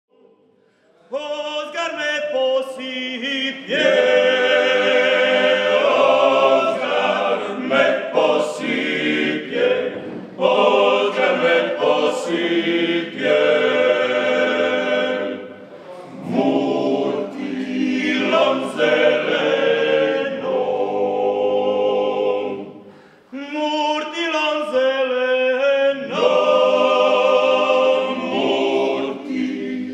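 Male klapa ensemble singing a cappella in close multipart harmony, the traditional Dalmatian style. The voices come in about a second in and sing in long phrases, with short breaths between them about halfway through and again near the three-quarter mark.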